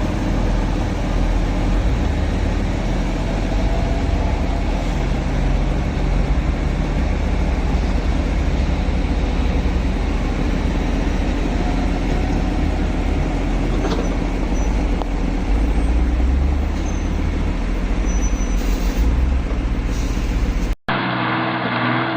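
Heavy logging truck's diesel engine running steadily under load, a dense low drone with mechanical noise. Near the end it cuts abruptly to another truck engine at a different pitch.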